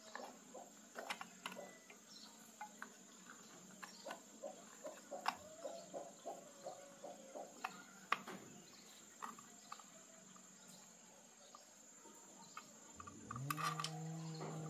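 Light clicks and taps of hands working at an electric motor's terminal box, over a steady high-pitched insect chirr. Near the end the banana chopper's electric motor starts, its hum rising in pitch as it spins up and then holding steady.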